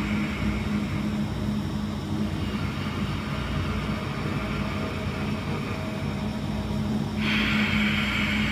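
Ujjayi pranayama breathing: slow, drawn breaths through a narrowed throat, heard as a rushing hiss. One breath fades out over the first two seconds, a quieter stretch follows, and the next breath starts abruptly about seven seconds in.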